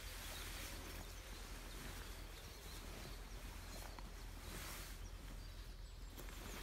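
Tent canvas rustling as a tipi's fly is lifted, unfolded and spread out by hand, against steady outdoor background noise.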